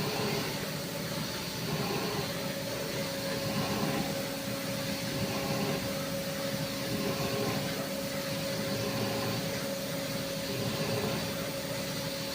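CNC vertical machining centre running: a steady whirring machine noise, joined about two seconds in by a steady mid-pitched whine that holds to the end.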